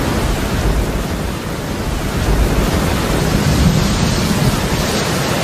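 Steady, loud rushing noise with a low rumble underneath, growing a little louder about two seconds in, like a rain and thunder ambience.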